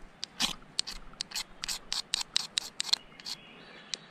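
Ferro rod being scraped hard with a striker to throw sparks onto lichen tinder: quick, sharp rasping strokes, about four a second, pausing briefly near the end.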